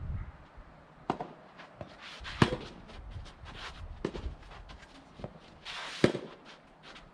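Rackets striking a soft tennis rubber ball in a rally: sharp hits about every one and a half to two seconds, with lighter ticks and scuffs between them.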